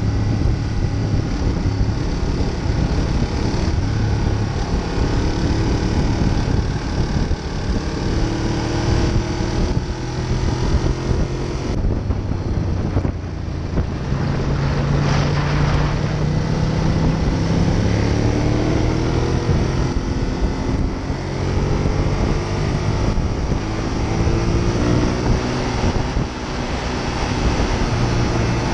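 Ducati Monster 821's L-twin engine running at road speed, its pitch rising and falling several times with throttle and gear changes. Steady wind rushes over the microphone throughout.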